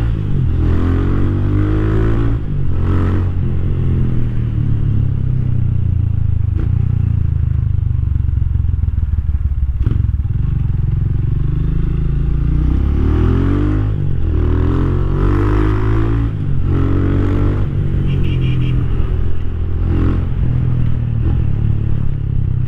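Rusi Classic 250's single-cylinder LX166FMM engine heard from the moving motorcycle, its pitch rising and falling several times as the rider accelerates and changes gear, with a few sharp clicks and knocks from the bike over the road.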